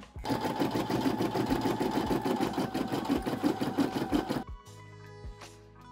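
Brother PE535 embroidery machine running a satin stitch over an appliqué, a fast, steady run of needle strokes that stops suddenly about four and a half seconds in.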